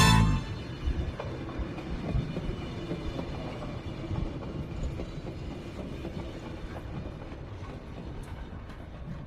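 Passenger train running along the track: a steady rumble of the wheels and carriage with a few faint knocks, slowly getting quieter.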